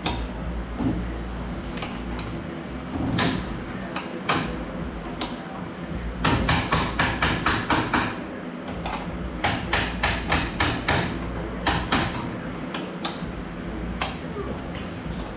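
Sharp metal taps in quick runs of about five a second, with single knocks between them: a tool striking the threaded preload collar on a Fox coilover shock to turn it and raise the ride height.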